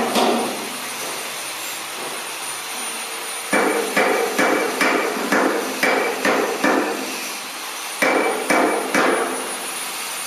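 Hammer blows on the steel of a Panzer IV tank's brake assembly, with a ringing tail on each blow. One blow at the start, a quick run of about nine strikes in the middle, then three more near the end.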